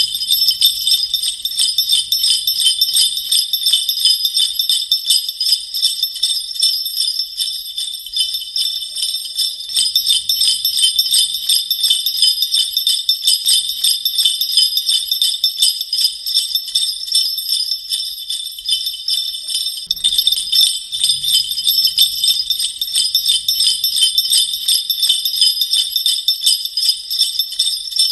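Sleigh bells jingling continuously in a dense, high shimmer of many small strikes with no pause; a steady, even shaking, like bells on a moving sleigh. They are taken to be old horse sleigh bells.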